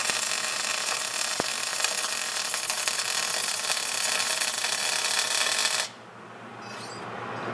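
Electric arc welding on a steel roll-cage tube joint: the arc's steady crackle and sizzle, stopping abruptly about six seconds in as the weld is broken off.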